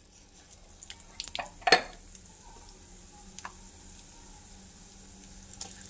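Besan-battered green chillies (mirchi bhaji) frying in hot oil in a deep kadhai, with a faint steady sizzle. A few light knocks come through it, the loudest a little under two seconds in.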